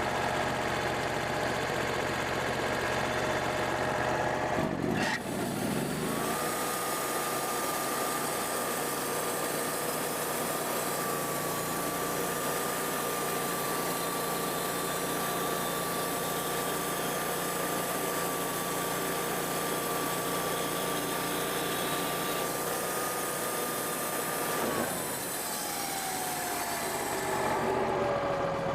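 Wood-Mizer band sawmill's engine throttled up about five seconds in, held at a steady high speed for about twenty seconds, then winding back down near the end.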